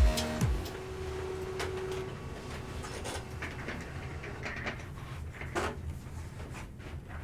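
Faint handling noises of trading-card packaging: scattered light clicks, taps and rustles as a sealed card box is handled on a table. The tail of a short electronic music sting cuts off right at the start.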